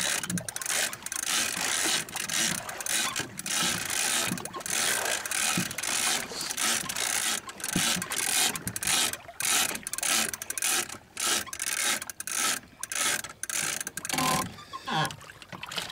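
Shimano Tiagra lever-drag reel being cranked hard, its gears ratcheting in repeated bursts as line is wound in under the load of a hooked shark.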